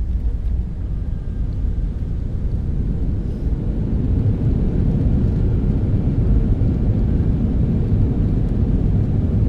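Boeing 757 cabin noise on landing: a deep, steady rumble of engines and airframe that swells about four seconds in and stays loud.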